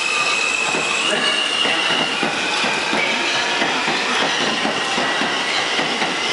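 R160B subway train rolling through the station, its steel wheels clattering over the rail joints. A thin, high wheel squeal sounds over the rumble in the first few seconds, then fades.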